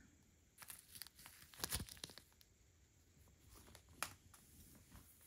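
Faint crinkling and rustling of small plastic zip-lock bags of diamond-painting drills being handled and laid down, with a few light clicks and a sharper tick about four seconds in.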